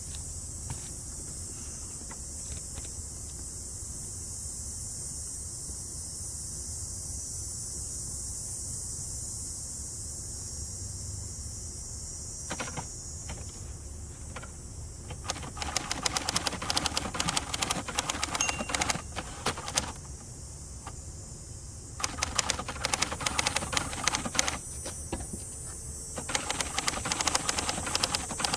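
1967 Hermes 3000 manual typewriter being typed on in quick runs of key strikes, with short pauses between the runs, through the second half. Before the typing starts there is only a steady high hiss.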